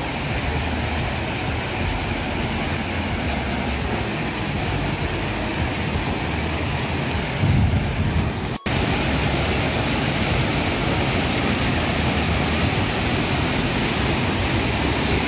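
Steady rushing noise of a waterfall in full flow, swollen with rain. It breaks off for an instant a little past halfway and comes back slightly louder.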